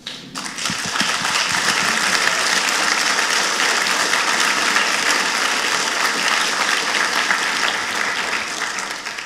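Audience applauding. The applause builds within the first second, holds steady, and tails off near the end.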